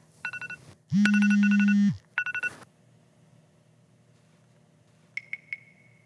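Phone alarm beeping in quick high pulses, broken by a loud, low buzz lasting about a second, then beeping briefly again. About five seconds in come three short, high pings.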